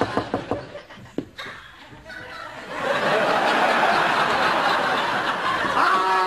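Studio audience laughing. The laughter dies to a lull about a second in, then swells up loud again from about three seconds in and holds.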